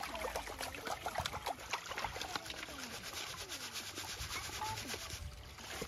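Wet gravel scraping and rattling in a wooden-framed screen sieve that is shaken back and forth in a trough of water, with water splashing and draining through the mesh.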